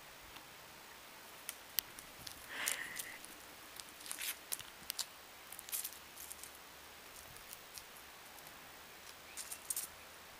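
Faint scattered clicks and light scuffs of a malamute puppy's claws and paws on concrete and among grass, with one short squeak about two and a half seconds in.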